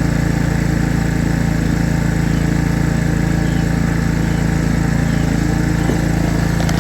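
An engine running steadily at idle, with an even, fast low pulse.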